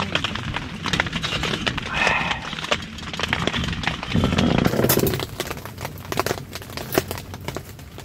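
Wood fire burning in a small camping wood stove: irregular crackles and pops over a low steady rumble of the fire, which swells briefly about halfway through.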